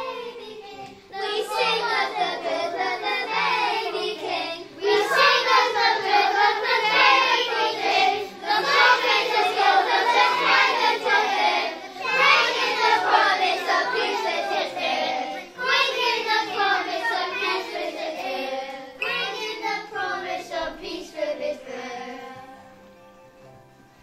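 A group of young children singing a Christmas song together over a backing track, in sung phrases of a few seconds with short breaks between them; the singing fades out near the end.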